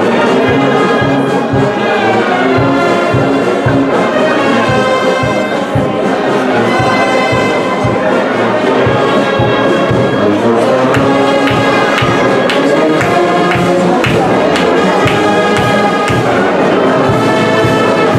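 Brass band playing, trumpets and trombones over a steady drum beat.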